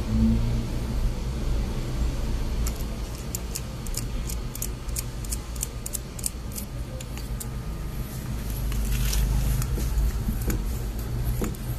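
Small metallic clicks and rattles, a quick run of them in the middle, as a mini bicycle pump's head is fitted and turned onto a tyre valve, over a steady low hum.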